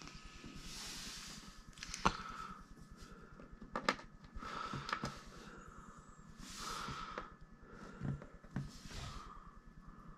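Hard plastic parts of a toy figure clicking and knocking as it is handled, a handful of sharp clicks with the loudest about two seconds in. Between them, several breaths through the nose close to the microphone, each about a second long.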